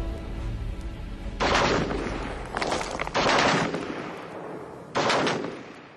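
Four sudden loud gunfire blasts, each dying away over about half a second, while music fades out in the first second.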